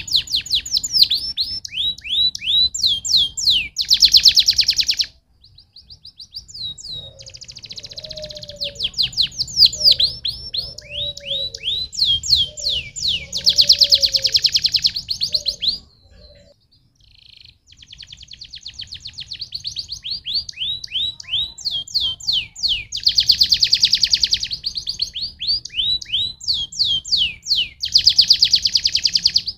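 Domestic canary singing: phrases of repeated, quickly falling high notes alternating with fast rolling trills, with short pauses about five seconds in and again around sixteen seconds in.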